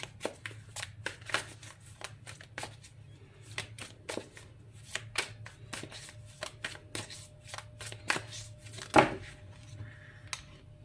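Tarot cards being shuffled by hand: a run of quick, soft card clicks and slaps, a few a second, with one louder slap about nine seconds in. A steady low hum sits underneath.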